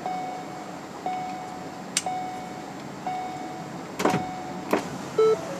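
2013 Ford Escape's warning chime beeping a single steady tone about once a second, with the door open and the key on. A sharp clack with a short falling whir comes about four seconds in, and another clack just after; near the end a two-note chime takes over at the same pace.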